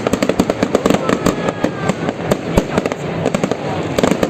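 Fireworks going off in a dense, continuous barrage of rapid crackling bangs and pops, with a few faint whistles sliding in pitch about a second in.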